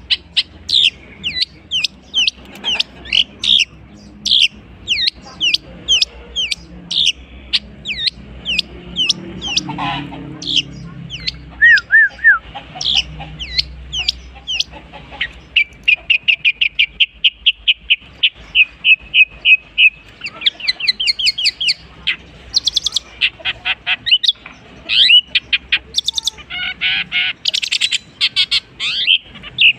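Long-tailed shrike (cendet) in full, continuous song, made up of mimicked calls of other birds. It opens with a long run of quick, sharply down-slurred whistled notes, shifts to a fast, even trill about halfway through, and moves to varied, scratchier mixed phrases near the end.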